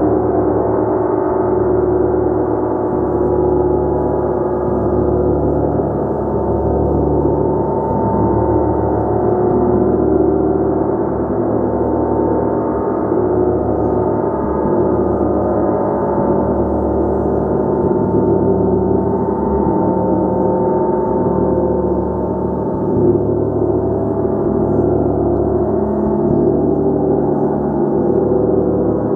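A gong played continuously, a dense sustained wash of many overlapping tones with its low hum throbbing slowly, the sound never dying away.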